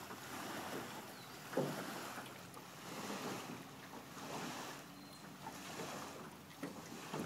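Lakeside water and wind noise: water moving, with gusts of wind on the microphone swelling and fading several times. A sharp thump comes about one and a half seconds in, and a faint steady hum sits underneath in the second half.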